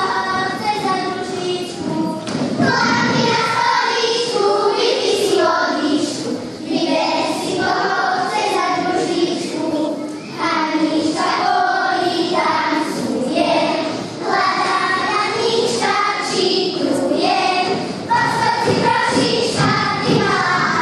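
A group of children singing a folk song together in unison, with the thuds of their dancing feet on the wooden stage floor.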